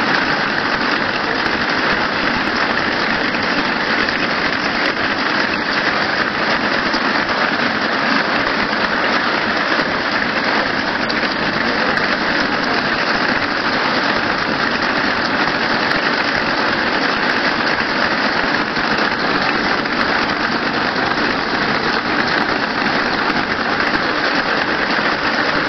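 YH-U-36-1 wire braiding machine for flexible natural-gas hose running steadily, a dense, even mechanical noise with no pauses.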